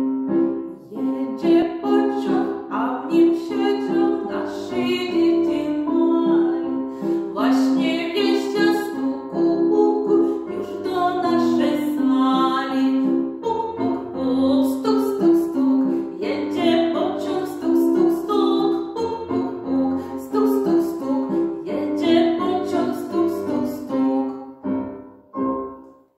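A woman singing a Polish children's song about a train, accompanying herself on an electronic keyboard.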